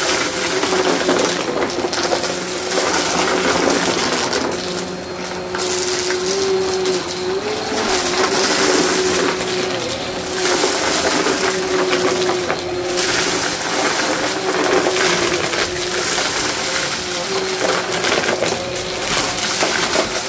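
Vacmaster upright vacuum cleaner running over carpet, its motor holding a steady hum while it sucks up scattered small dry debris with a continuous rattling crunch that swells and eases with each push.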